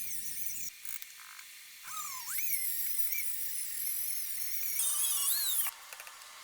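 High-pitched whine of a small power tool, its pitch repeatedly rising and falling as it speeds up and slows, in several short cuts.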